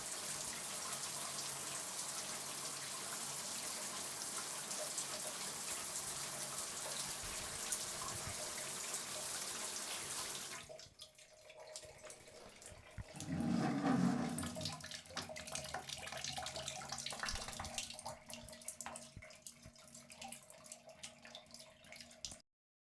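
Shower spray running steadily, heard from inside the shower, then shut off abruptly about halfway through. Scattered drips follow, with a short louder swell a few seconds after the water stops.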